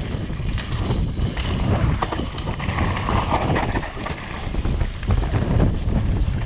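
Wind rushing over the microphone of a downhill mountain bike on a rough trail, with a rapid clatter of knocks and rattles from the bike over bumps; the sound cuts off suddenly at the end.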